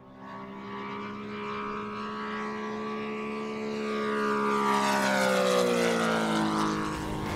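Saito FG-90R3 three-cylinder four-stroke radial engine on a giant-scale RC Ki-43 Oscar model in a low flyby. The sound fades in, grows louder as the plane approaches, and drops in pitch as it passes, about five to seven seconds in.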